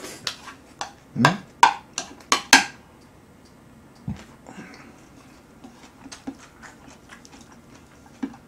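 Close-up eating sounds: a metal spoon clicking and scraping against a plastic bowl, with loud mouth smacks in a quick run over the first three seconds or so. After that come quieter chewing and small clicks, with one more sharp click near the end.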